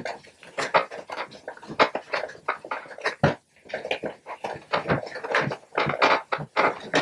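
Hands pressing and squeezing soft, wet clay lumps on a work table: a quick, irregular run of wet squelches and slaps, several a second.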